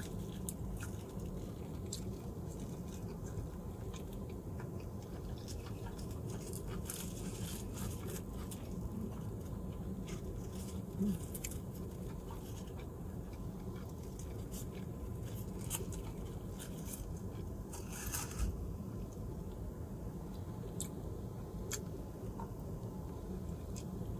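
Close-up chewing of a person eating a sushi burrito, with scattered small mouth clicks and a brief rustle about three-quarters of the way through, over a steady low hum.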